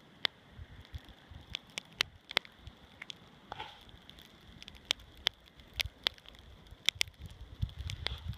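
Irregular sharp ticks and crackles of snow over a faint steady hiss, with low crunching building near the end.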